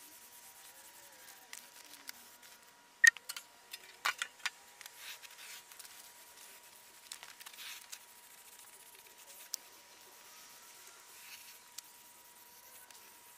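Aerosol spray can hissing in short, faint bursts, with a few sharp clicks and taps from handling the can. The loudest click comes about three seconds in.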